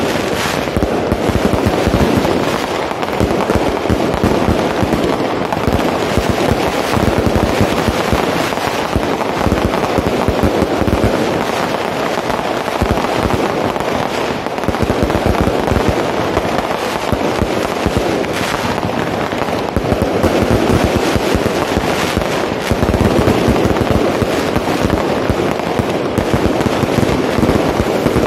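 Fireworks going off in a dense, unbroken run of bangs and crackling, loud throughout with no let-up.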